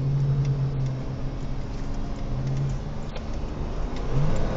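Car engine and road noise heard from inside the cabin: a steady low hum, with the engine pitch rising a little about four seconds in as the car picks up speed.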